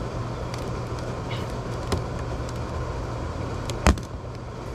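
A steady low hum, with a sharp snap about two seconds in and a louder one near the end: the brittle plastic of an old RV skylight cracking as it is pried loose from its sealant.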